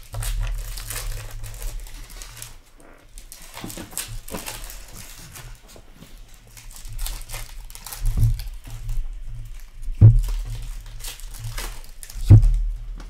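Hands riffling, sliding and flicking through a thick stack of trading cards, a dense run of papery crinkles and flicks. Three heavy thumps in the second half stand out as the loudest sounds.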